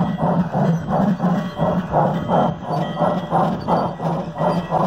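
Battery-powered G-scale model steam locomotive running with simulated steam chuffing from its sound unit, an even rhythm of about four chuffs a second.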